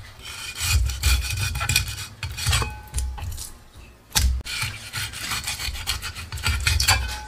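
Chinese cleaver slicing fillets off a sea bass, the blade rasping in repeated strokes along the bones and across the wooden board, with a sharp knock about four seconds in.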